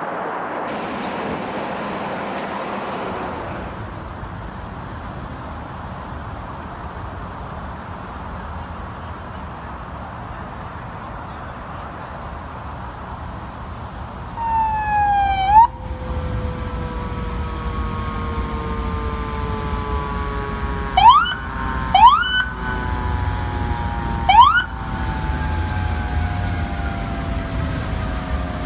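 Emergency vehicle sirens over traffic noise. About halfway in, a siren sweeps up and cuts off sharply. Later, three short rising whoops sound while another siren tone slowly winds down over a low engine rumble.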